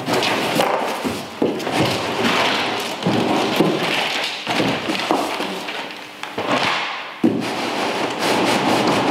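A large cardboard carton being handled and unpacked: rustling and scraping of cardboard and packaging with several knocks and thuds. About seven seconds in a sharp knock is followed by a steadier scraping as the carton starts to slide up off the grill.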